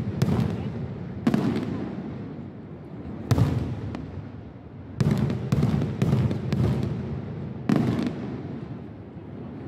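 Aerial fireworks shells bursting overhead: a series of sharp bangs, singly at first, then a quick run of four or five about halfway through, each followed by a rolling echo.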